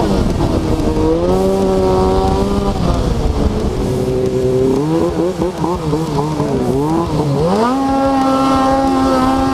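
Snowmobile engine running under way, its revs holding, dropping about 3 s in, wavering up and down quickly for a couple of seconds, then climbing near the end and holding high.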